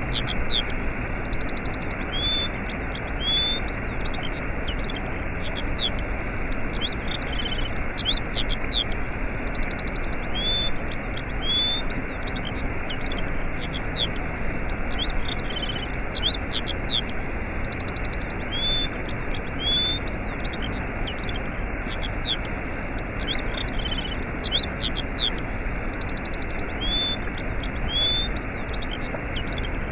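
Waterfall rushing steadily, with songbirds chirping and whistling over it in many short, quick calls. The bird calls come back in the same order about every eight or nine seconds, as in a looped recording.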